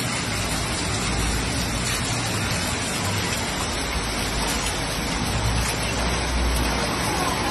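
Steady hiss of heavy rain over rushing floodwater, with a low rumble underneath that swells around the middle.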